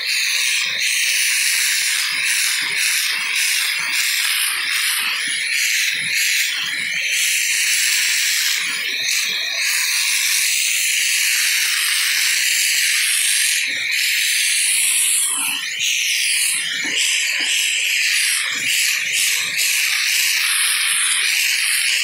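Shark handheld vacuum running with its crevice tool on carpet: a steady high-pitched whine and hiss, with scattered ticks and crackles as the nozzle sucks up glitter and grit.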